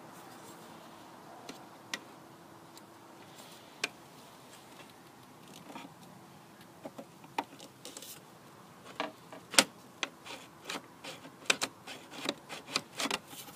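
Plastic clicks and knocks of a Volvo V70's control module being pushed into and pulled out of its connector socket. The clicks are sparse at first and come several a second in the last few seconds. The module is being worked in and out to break up deposits on freshly DeoxIT-sprayed contacts.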